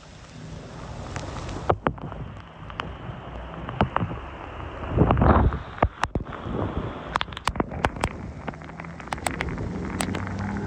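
Vehicle noise and the steady rush of floodwater, with many sharp taps and knocks scattered through it and a louder surge about five seconds in.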